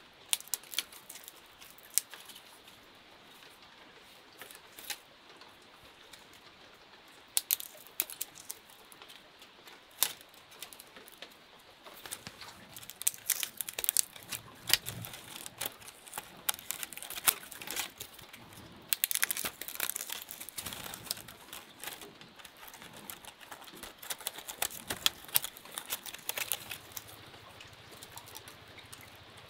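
Thin bamboo strips clicking and crackling against each other as they are woven into a basket by hand. A few scattered sharp clicks at first, then a long dense run of clicking and rustling through the middle that thins out near the end.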